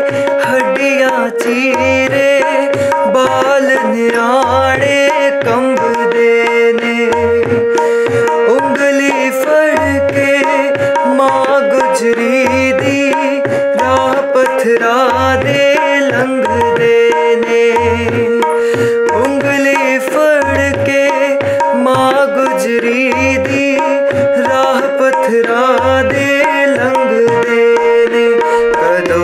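Tabla playing a steady rhythm, with deep strokes on the bass drum, under sustained harmonium chords, with a man singing over them.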